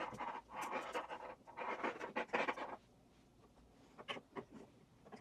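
Cables and rig parts being handled: rustling and scratching for a few seconds, then a couple of sharp clicks as a connector or part is fitted.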